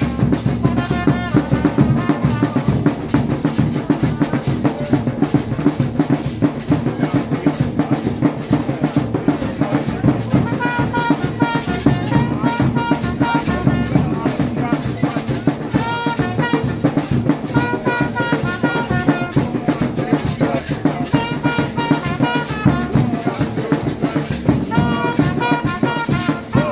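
A fan band's large double-headed drums beaten with sticks and hands in a steady, dense rhythm, with a trumpet playing short held phrases over the drumming at several points.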